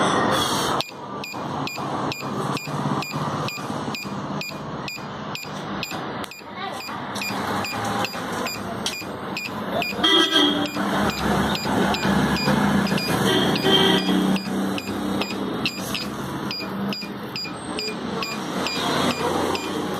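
Small piezo buzzer of a homemade pendulum earthquake detector sounding in short regular chirps, about three a second, as the swinging nut keeps touching its contact ring: the alarm signalling that shaking has been detected.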